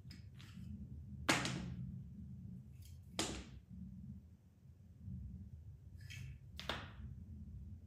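Large cat exercise wheel turning slowly under a walking cat, with a low rumble, broken three times by a sharp knock: about a second in, a few seconds in, and near the end.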